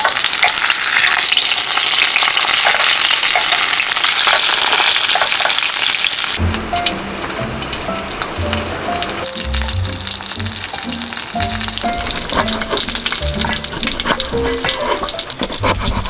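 Loin and cheese pork cutlets deep-frying in hot oil in a small square pan: a loud, steady sizzle. About six seconds in the sizzle drops away and background music takes over.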